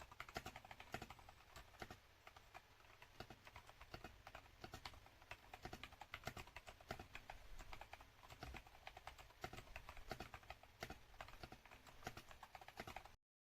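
Typing on a custom mechanical keyboard fitted with JWick R2 Black switches, linear switches with nylon housings: quiet, quick, irregular key clacks, several a second, stopping abruptly near the end.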